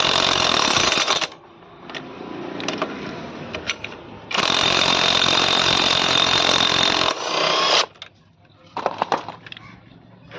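Power tool running in two bursts: a short one at the start and a longer one of about three and a half seconds from about four seconds in, used to loosen parts on a motorcycle's clutch side. Light metallic clicks and clinks of tools and parts come between and after the bursts.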